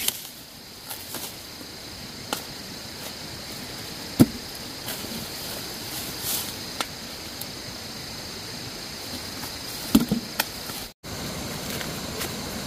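Outdoor ambience: a steady hiss with a faint high steady drone, broken by a few sharp knocks, the loudest about four seconds in and a short cluster around ten seconds. The sound cuts out for an instant just after that.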